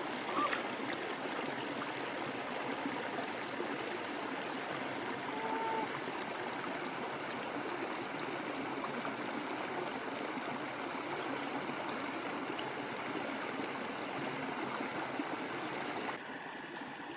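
Shallow rocky stream running steadily, a continuous rush of flowing water that drops a little in level near the end.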